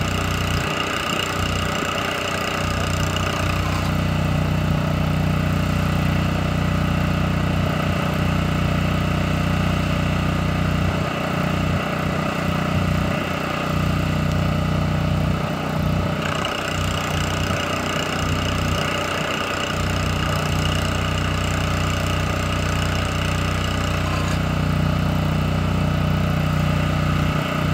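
Cummins Onan QG 2500 LP RV generator running steadily at a constant speed under about 40% load, its exhaust heard from about ten feet. The exhaust resonator is being fitted onto the tailpipe, and the upper part of the exhaust tone fades and comes back more than once as it is handled.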